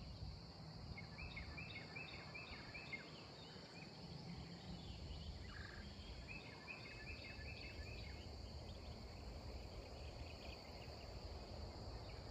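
A songbird sings a quick run of repeated chirping notes twice, over a steady high insect drone and a low rumble.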